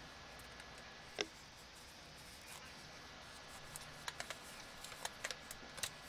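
Light handling clicks and taps from thread seal tape being wrapped onto a threaded metal pipe fitting by hand: one sharper click about a second in, then a run of small clicks near the end.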